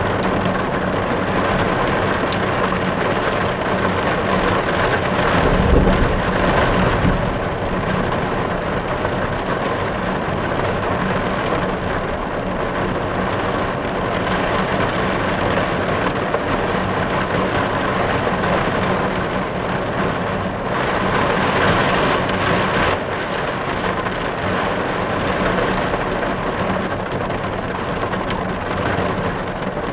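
Steady rain drumming on a car's roof and windows, heard from inside the car. A brief deeper rumble swells about six seconds in.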